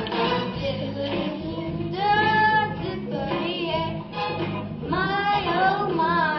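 Children's chorus singing with instrumental accompaniment. The voices swell with vibrato about two seconds in and again near five seconds.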